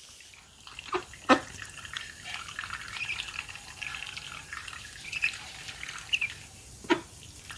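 Ducks dabbling and pecking at wet mash, their bills making wet slapping and slurping sounds, with a few short sharp sounds about a second in and near the end.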